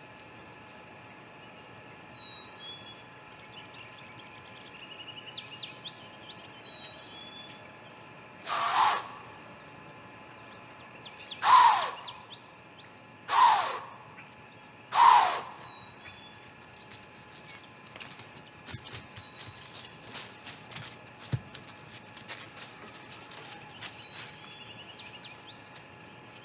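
Four loud hisses at a great gray owl nest, each under a second and sweeping slightly downward, in quick succession in the middle of the stretch. Before them come faint small-bird chirps; after them, a scatter of light taps and clicks.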